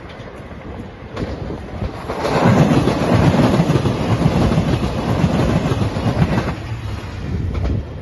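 JR 2700 series diesel express train passing at speed, its wheels clattering over the rail joints. It swells about two seconds in, is loudest for about four seconds, then drops away near the end.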